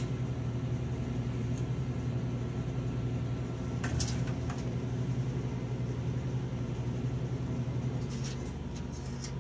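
A steady low machine hum that eases slightly about eight seconds in. Light clicks come about four seconds in and again near the end as thin laser-cut wooden pieces are handled on the metal honeycomb bed.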